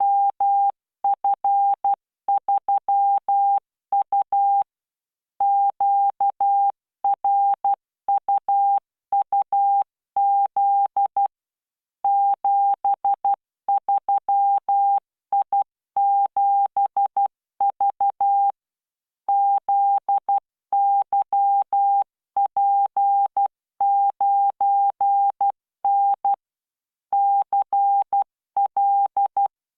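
Morse code (CW) practice tone from the LearningMorse training software: a single steady beep keyed into dots and dashes at 12 words per minute with standard spacing. Groups of characters are separated by pauses of about a second, and each keying edge carries a faint click.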